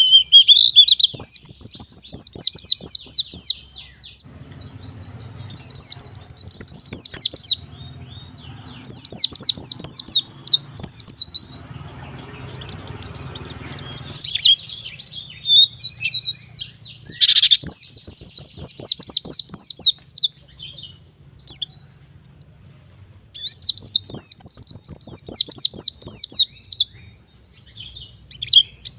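White-eye (pleci) singing in full voice: about five loud bursts of rapid, high twittering song, each a few seconds long, with short pauses between them.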